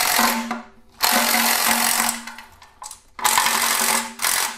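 Cordless ratchet running in three short bursts, each about a second long, as it spins out 10 mm oil pan bolts, its motor whirring with a steady tone.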